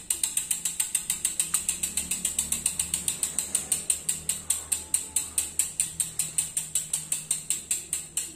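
Road bike's rear freehub ratchet clicking as it freewheels: a rapid, even train of sharp ticks, about six a second. This is the loud "cricket" sound of the bike's stock carbon wheelset hub.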